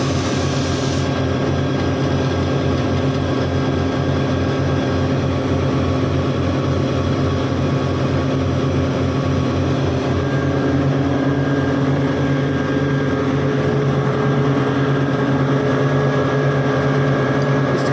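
A brief hiss of nitrogen gas for about the first second as the cylinder valve is opened further to charge the air dryer. Under it, a steady low mechanical drone of running machinery with a fast, even pulse.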